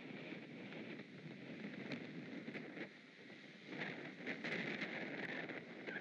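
Wind gusting through the tree around the nest, with branches and needles rustling and crackling; it swells louder about two-thirds of the way in.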